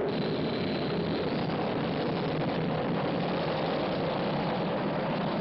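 Cartoon rocket-engine sound effect at lift-off: a loud, steady rushing noise with a low rumble underneath.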